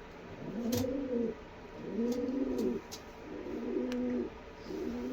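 Racing homer pigeons cooing: about four low coos in a row, each rising then falling, with a few sharp clicks between them.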